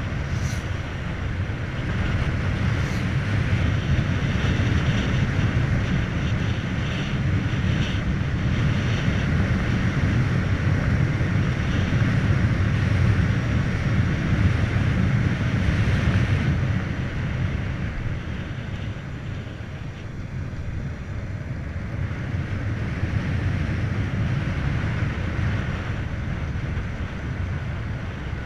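Wind rushing over the microphone and tyre noise from a Volta BCN Sport electric motorcycle riding at road speed, a steady low rumble with no engine note. It eases off somewhat a little past halfway, then picks up again.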